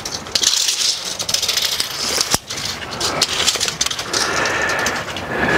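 Steel tape measure being worked and reeled in: a continuous rattling and clicking of the blade, with one sharp click a little over two seconds in.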